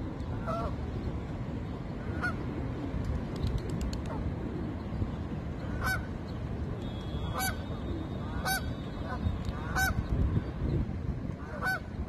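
Canada geese honking: about seven short, separate honks spaced a second or two apart, over a steady low rumble.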